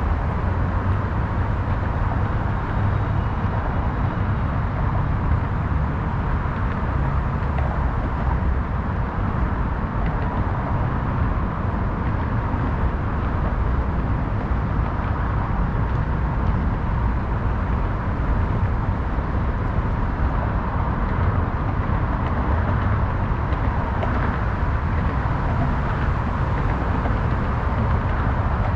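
Steady waterfront city ambience: an unbroken low rumble of traffic under an even hiss, with a faint steady tone running through it.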